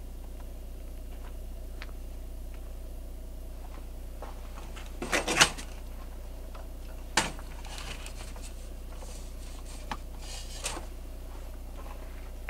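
A plastic louvered vent panel on a truck camper's outside wall being handled and opened: a quick run of clicks and rattles about five seconds in, a single sharp click about two seconds later, then a few light taps. A steady low hum runs underneath.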